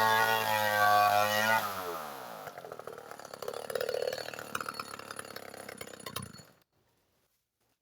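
Chainsaw running at high revs, then let off the throttle about a second and a half in; the pitch drops and the saw runs on at low speed with a rattly clatter. The sound cuts off suddenly near the end.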